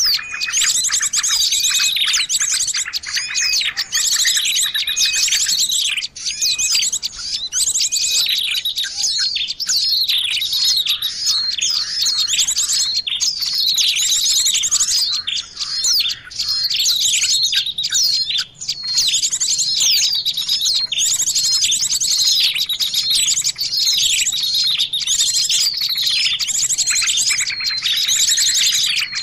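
Small songbirds chirping and twittering in a dense, continuous chorus of high, rapid, overlapping notes: a bird-lure recording meant to call small wild birds in.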